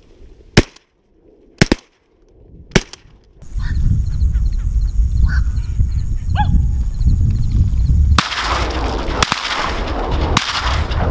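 Open marsh: wind rumbling on the microphone, with birds chirping and a couple of short rising honk-like waterfowl calls. A quiet stretch at the start holds three sharp cracks about a second apart, and a louder rushing hiss with two more cracks comes near the end.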